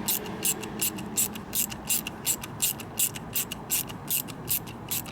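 Ratchet clicking in an even rhythm, about three sharp clicks a second, while a part of the motorcycle's handlebar controls is drawn tighter.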